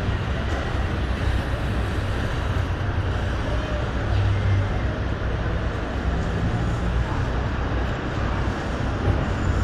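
Steady street traffic: cars passing with a continuous low rumble of engines and tyre noise.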